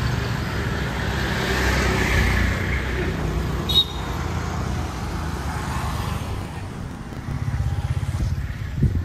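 Road traffic passing close by: the small engines of motor scooters and a three-wheeler auto-rickshaw go by, one swelling past about two seconds in and another puttering close near the end. A single sharp click just before four seconds.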